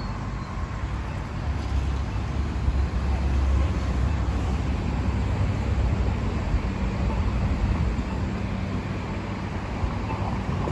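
Steady low rumble of vehicle and road traffic noise.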